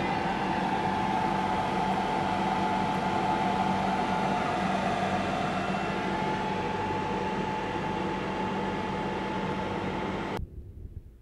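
An alarm sounding continuously with a steady, unchanging tone, then cutting off suddenly about ten seconds in, as if silenced at the control panel; a few faint knocks follow.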